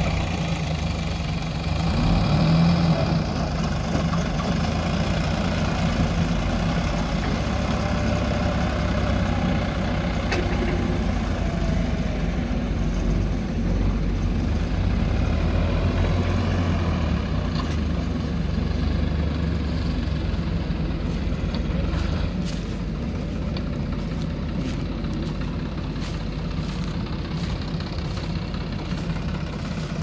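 Diesel engines of a farm tractor and a JCB backhoe loader running steadily, with most of the sound low and a slight drop in level about two-thirds of the way through.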